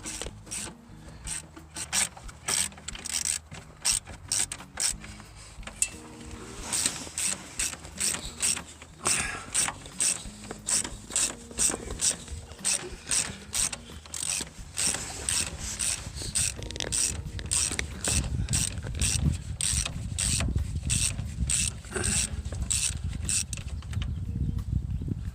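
Ratchet wrench clicking in quick runs of about two to three clicks a second, with short pauses between strokes, as it is worked back and forth on a fastener.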